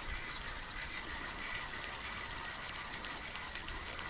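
Steady wind rumble on the microphone and small waves lapping at the bank, with a faint steady high tone and a few light ticks.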